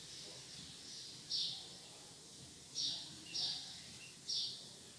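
Whiteboard marker squeaking across the board in four short, irregularly spaced strokes as figures are written.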